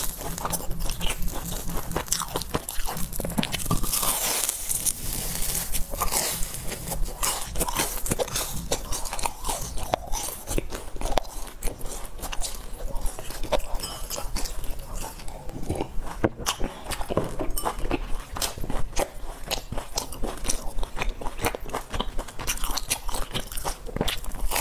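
Close-miked crunching and chewing of a crisp, hollow fried sesame ball: many sharp, irregular crackles as the fried shell is bitten and chewed.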